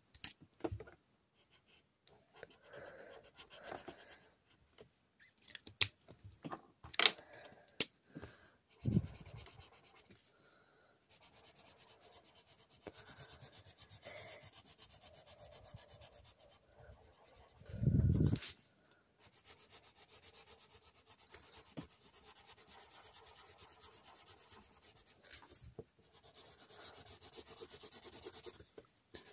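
Felt-tip marker rubbing back and forth on paper in rapid, even strokes, colouring in. A few sharp clicks come in the first several seconds, and two dull thumps, the louder about two-thirds of the way in.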